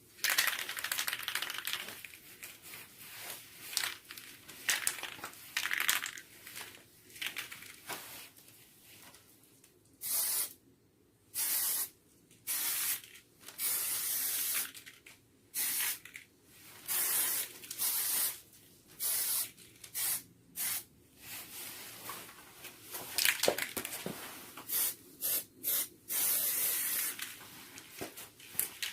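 Aerosol spray can releasing a series of short hissing bursts, each about half a second to a second long, with gaps between them. In the first third the bursts are more ragged and broken up.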